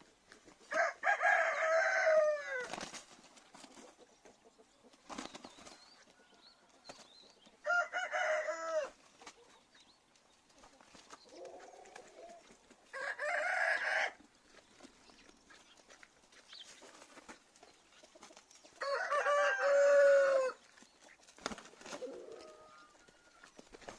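Rooster crowing four times, each crow a second or two long and dropping in pitch at its end, with a couple of fainter, shorter calls and scattered light clicks between.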